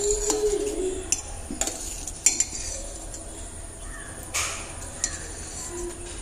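Metal spoon stirring thick soup in a stainless steel pot, with several sharp clinks of the spoon against the pot; the loudest comes about two seconds in.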